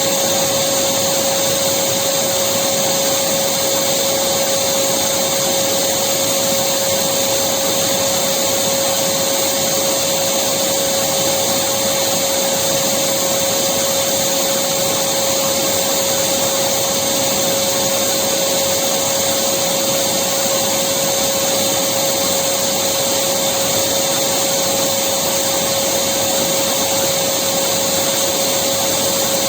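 Electric vacuum cleaner running steadily, a constant dense whoosh with a steady whine on top.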